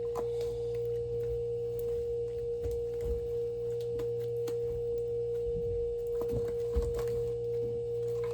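A steady, unchanging mid-pitched tone, like an electrical whine, with a low hum beneath it and a few faint clicks and taps.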